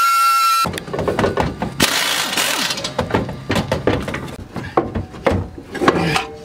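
Metal clanking and rattling as a Chevy Cobalt SS's rear muffler and exhaust pipe are knocked and wrenched loose from underneath: quick, irregular knocks and scrapes. A held high tone cuts off about half a second in.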